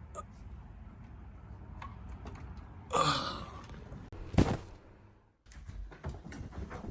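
A breathy, gasp-like sound about three seconds in, then one sharp thud a second and a half later, over a low rumble.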